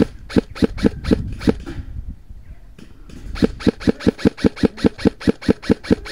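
Airsoft rifle firing: a few quick shots, a short pause, then a steady string of shots at about four a second.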